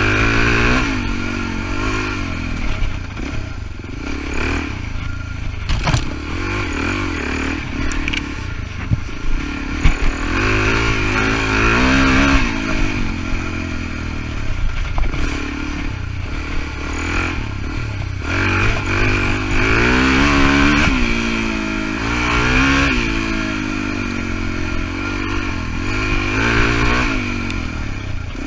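Suzuki DR-Z400E single-cylinder four-stroke dirt-bike engine under way, its revs rising and falling again and again as the throttle is worked. A few sharp knocks and clatter from the bike come through over the rough track.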